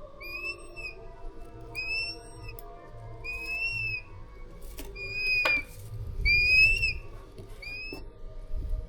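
Changeable Hawk-Eagle chick calling: six high, thin whistled calls, each rising and then falling in pitch, about one and a half seconds apart. A sharp click comes about halfway through.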